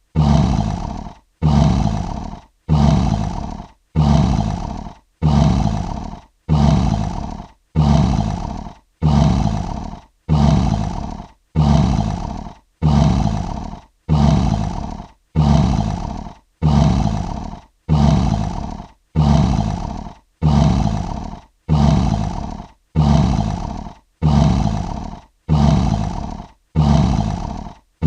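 Lion roar sound effect looped: one short roar repeated over and over about every 1.4 seconds in an even, machine-regular rhythm, each one starting suddenly and fading away.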